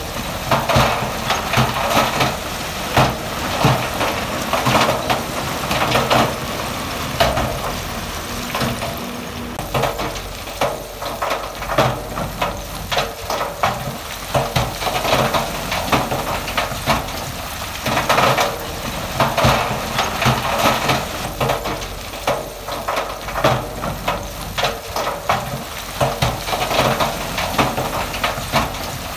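Rocks clattering and grinding as heavy machinery moves a load of stone, a dense stream of knocks with louder surges every few seconds. A diesel engine runs low underneath.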